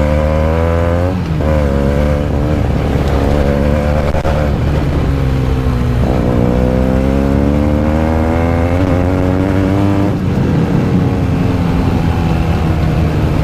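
Motorcycle engine accelerating through the gears: its pitch climbs, then drops back at each upshift, about one, six and ten seconds in.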